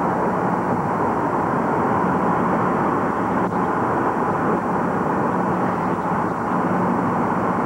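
Steady road and wind noise inside a vehicle moving at highway speed: an even rushing hiss over a constant low hum.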